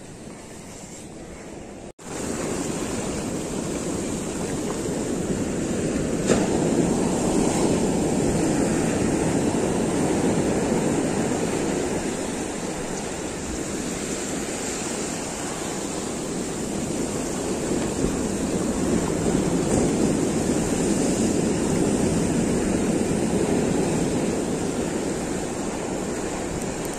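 Ocean surf breaking and washing up a sand beach in a continuous rush, quieter for the first two seconds and louder after that. A single short knock sounds about six seconds in.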